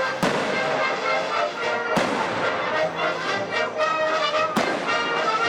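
Fireworks bursting three times, sharp bangs with echoing tails about two seconds apart, over steady music.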